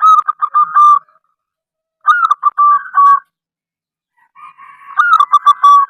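Zebra dove (perkutut) cooing: three phrases about two seconds apart, each a quick run of short, clipped coo notes that starts slightly higher and settles lower.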